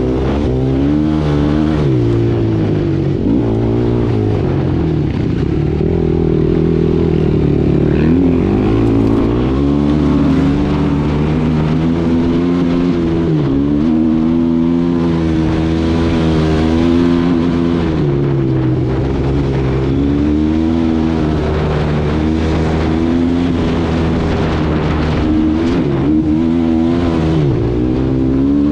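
Suzuki LT-R450 quad's single-cylinder four-stroke engine under way on a trail, revving up and easing off over and over as it is ridden.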